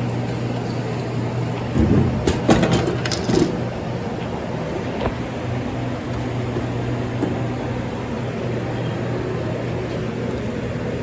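Dixie Narco 12 soda vending machine vending: about two seconds in, a drink drops with a couple of thuds, followed by a rattling, clinking clatter lasting about a second and a half. A steady low hum runs underneath.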